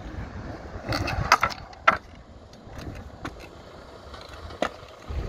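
Freestyle scooter wheels rolling on asphalt with a low rumble, broken by several sharp clacks of the scooter hitting the ground, the loudest between one and two seconds in, and another knock near the end.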